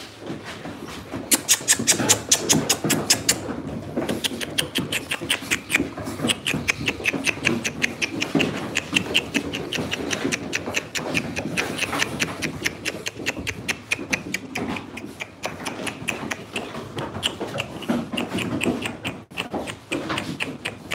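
Bulldog puppies play-fighting over a rope toy: rapid, even breathy huffs at about five or six a second, with lower grunting underneath.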